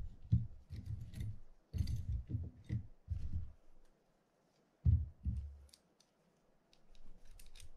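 Small metal parts of a dismantled Penn Senator 112H fishing reel being picked up and handled, with irregular light clicks of metal on metal and soft knocks of hands and parts on the table. The handling stops briefly around the middle, then a knock.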